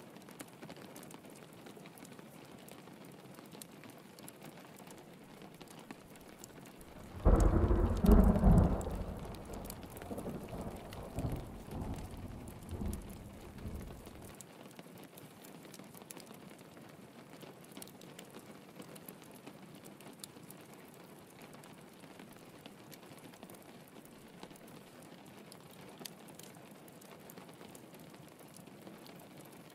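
Steady rain throughout, with a loud clap of thunder about seven seconds in that rumbles on in fading swells for several seconds.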